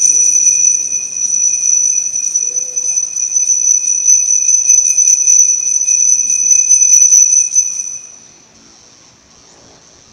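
Altar bell rung continuously, a bright, shimmering high ringing that stops about eight seconds in and then dies away. It marks the elevation of the chalice at the consecration.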